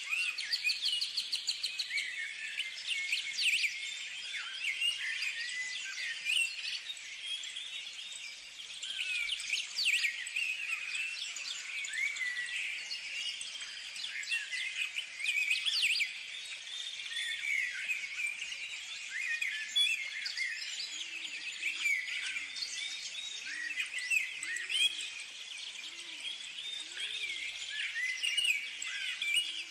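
Several birds chirping and singing, with many short overlapping calls and a rapid trill in the first second. Fainter low calls repeat about once a second near the end.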